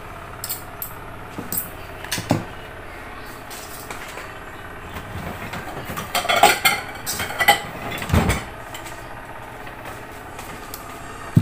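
Kitchen utensils and dishes clinking and clattering, a few light clicks early on and louder ringing metal clinks about six to eight seconds in, over the steady hum of an electric fan.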